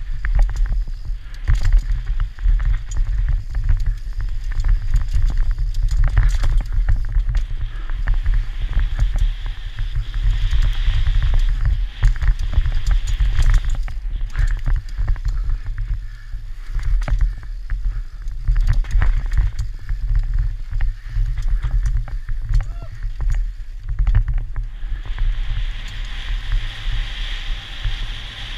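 Mountain bike riding fast down a dirt trail: heavy wind rumble on the microphone under constant rattling and knocking of the bike over bumps, with tyre hiss on loose dirt.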